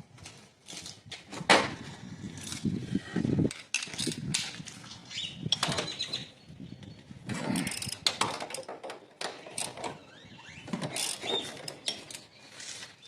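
Hand tools working on metal: irregular clicks, knocks and clanks of a wrench and socket as the 15 mm bolts holding the power steering pump are loosened.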